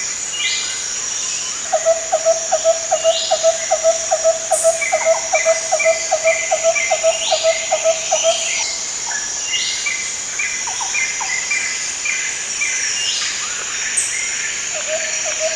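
Tropical jungle soundscape: a steady high insect drone under several animal calls, among them repeated short chirps, falling whistles every couple of seconds, and a fast pulsed call of about four pulses a second that runs for about six seconds, stops, and starts again near the end.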